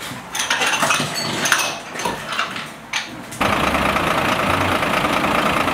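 Irregular knocks and clatter, then about three and a half seconds in an abrupt change to a fire engine's motor running steadily.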